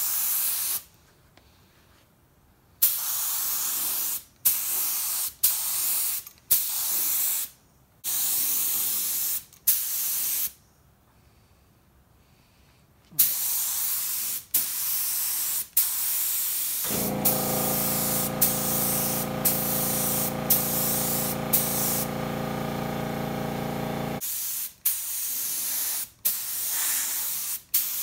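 Iwata LPH 80 spray gun spraying paint in a string of short bursts, a second or two each, every burst starting with a sharp puff of air as the trigger is pulled, with two pauses of a couple of seconds. About 17 seconds in, the small 2.6-gallon air compressor's motor kicks on and hums steadily for about seven seconds, then stops, while the spraying goes on over it.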